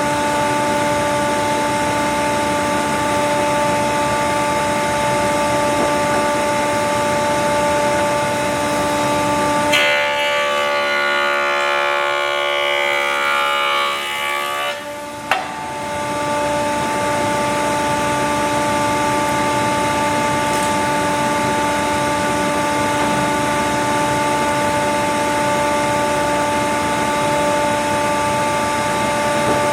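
A woodworking machine running steadily with a strong, even hum. About ten seconds in it is briefly replaced by a different, many-toned sound that ends in a sharp click, and then the steady running resumes.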